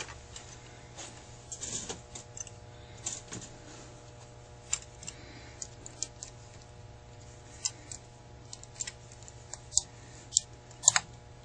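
Light metallic clicks and taps as a metering rod and its fittings are worked by hand into the jet of a Carter AFB carburetor, metal touching the carburetor body. Scattered single ticks, with a few louder clicks near the end, over a faint steady hum.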